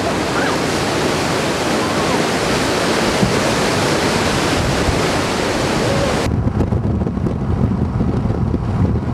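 Steady rushing of flash-flood water, an even hiss. About six seconds in it cuts suddenly to the low rumble and wind buffeting of a car driving.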